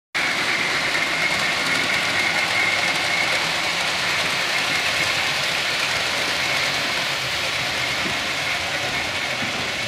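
Model trains running on a layout's track: a steady rumble of wheels on rails with a constant high whine.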